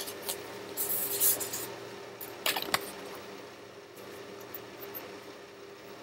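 Paper index cards rustling as they are handled and swapped, with a few sharp snaps of card about halfway through, over a steady low hum.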